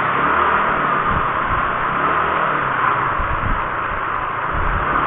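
Motorcycle ride heard on an action camera worn by the rider: the engine runs under a steady rush of wind and road noise.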